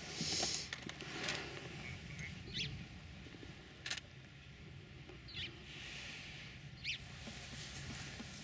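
Short high-pitched chirping calls, three of them a couple of seconds apart, over a faint low rumble, with a single sharp click about four seconds in.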